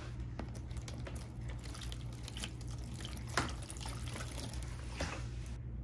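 Water pouring and splashing into a shallow clear plastic tub around a turtle, with a few light knocks; the pour stops near the end.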